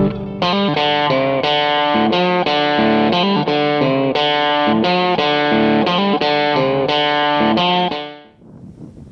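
Background music: electric guitar playing a run of plucked notes with effects, about two notes a second, fading out about a second before the end to faint outdoor noise.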